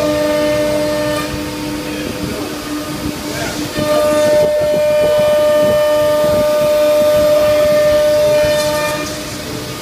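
C.R. Onsrud Panel Pro twin-head CNC router running with a steady pitched whine. About four seconds in it grows louder as a second, higher tone joins, then eases near the end.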